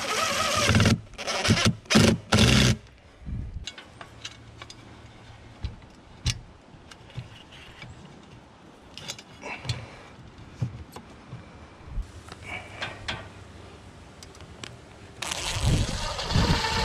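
Cordless drill driving a screw through a metal antenna mounting bracket into a wooden eave, its motor whine gliding up and down in pitch near the end. Before that, a few loud short bursts in the first three seconds, then scattered clicks and taps of handling.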